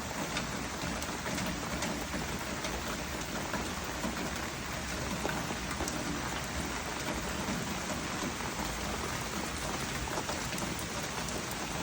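Heavy rain pouring steadily, a dense even hiss dotted with the ticks of individual drops.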